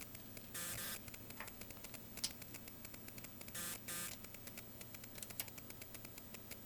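Faint steady mains hum with three short whirring bursts, one about half a second in and two back to back near four seconds, and a light click a little after two seconds. The whirs fit a camcorder's zoom motor.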